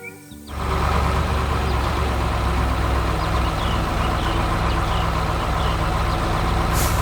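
A heavy vehicle's engine idling steadily, picking up after a brief drop at the very start.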